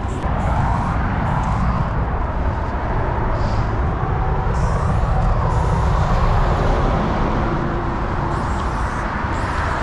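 Steady street noise with a deep rumble and a hiss, like vehicle traffic.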